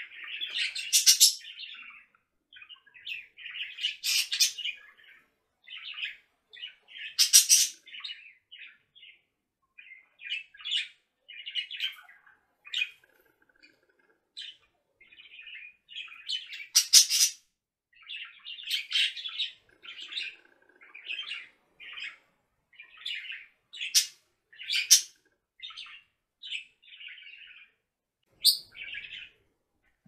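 Budgerigar chatter and warble: a steady stream of short chirps and twitters, broken every few seconds by a loud, sharp call.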